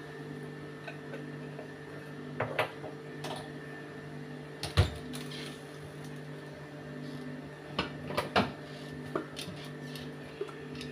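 A steady mechanical hum with a few scattered clicks and knocks of kitchen handling. The loudest is a single knock about five seconds in, and a quick cluster of clicks comes about eight seconds in.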